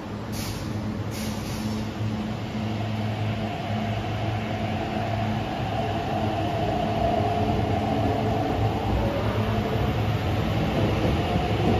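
Electric metro train pulling out of an underground station and accelerating. Two short hisses come about a second apart near the start, then the motors' whine rises and the train grows louder over a steady low hum.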